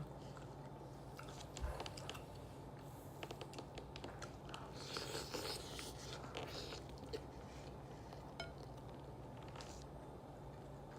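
Person eating a breakfast sandwich: faint chewing and mouth sounds with scattered small clicks and scratchy rustles.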